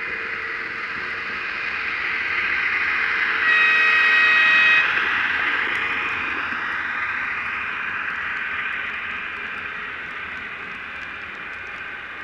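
Model railway train running past: a steady running and rolling noise that builds as it approaches and fades away after it passes. A single horn blast lasting just over a second sounds about three and a half seconds in and is the loudest moment.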